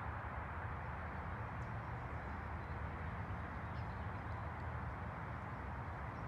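Steady outdoor background noise, a low rumbling wash like wind on the microphone, with a few faint high chirps.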